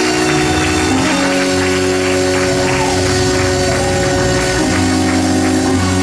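Church praise music from a live band: held chords that change a few times over a steady beat of drums and tambourine.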